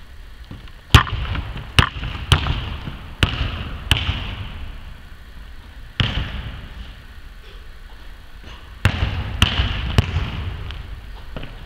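Basketball bouncing on a hardwood court: about nine sharp, irregular bounces, the loudest about a second in, each followed by a long echo in the large empty hall.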